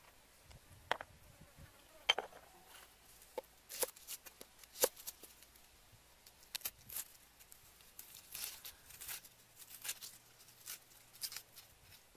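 Cleaver blade tapping and scraping on a wooden chopping block as garlic cloves are peeled: scattered sharp clicks, then clusters of softer scraping and rustling of the papery skins in the second half.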